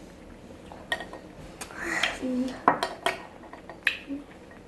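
A spoon clinking against a bowl several times, scooping up Maltesers in milk.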